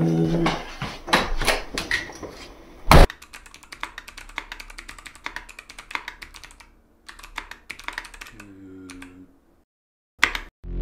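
Fast typing on a computer keyboard: a quick stream of key clicks, with one loud sharp knock about three seconds in. The typing breaks off shortly before the end, and a few last clicks follow.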